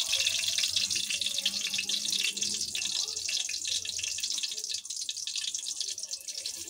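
Cumin seeds frying in hot oil in a karahi: a steady, fine crackling sizzle as the seeds begin to cook.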